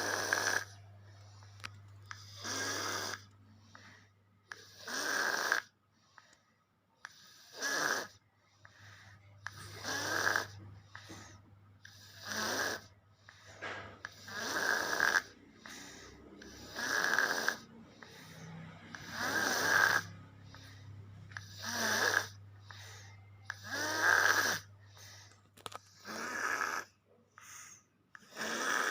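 A baby snoring, about one snore every two seconds.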